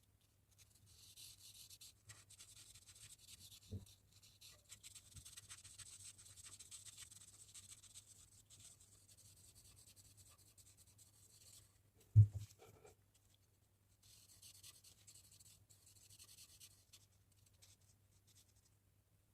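Pen strokes scratching on paper while drawing, in two long stretches with a pause between them. There is a light tap about four seconds in, and a sharper, louder knock about twelve seconds in, like the pen or hand bumping the table. A faint steady low hum runs underneath.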